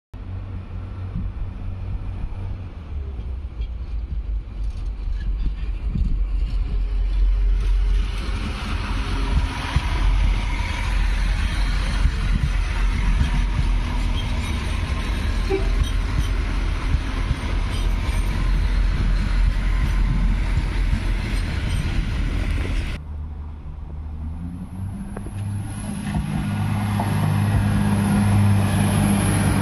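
Irish Rail 22000 Class diesel multiple unit pulling away, its diesel engines droning with the rumble of wheels on the rails, growing louder about a quarter of the way in. After an abrupt cut about three-quarters of the way through, the engine note builds up again, louder, as the train gathers speed.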